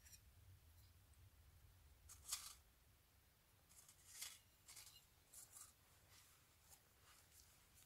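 Near silence with a few faint metallic clicks and scrapes as the small parts of an ultralight spirit stove are handled: the pot hooks, burner and windscreen pot stand. The clearest comes about two seconds in, then a few more around four to five and a half seconds in.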